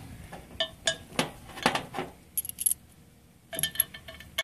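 Light metallic clinks and taps, a dozen or so irregular strikes with a couple of brief high tinkling rings, as hardened-steel nipple cups and a fitting tool are handled against a Ford 6.0L diesel's high-pressure oil rail.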